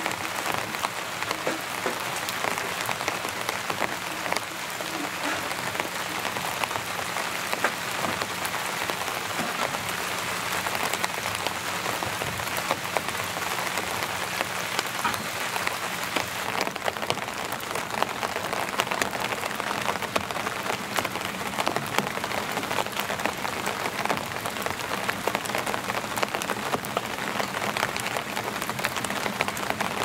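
Steady rain falling on a tent, a dense patter of close drop taps over an even hiss.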